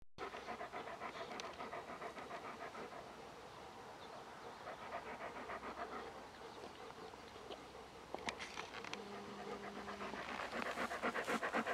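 Rapid, regular panting, growing louder near the end.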